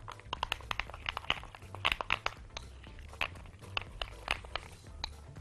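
Light, irregular clicks and taps from hands working a small bowl and scattering chocolate over coconut dessert balls. They come thickest in the first couple of seconds and sparser after.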